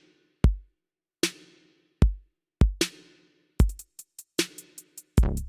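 Electronic drum-machine beat: sparse deep kick drums and snare hits, with fast hi-hat ticks joining about three and a half seconds in and a heavy bass entering near the end.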